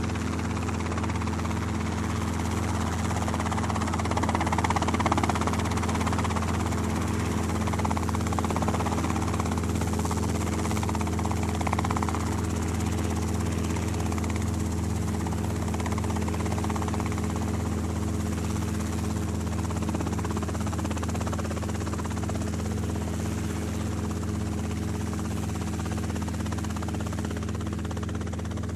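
News helicopter heard from on board: a steady low drone with a stack of overtones that holds level throughout, under a rushing noise.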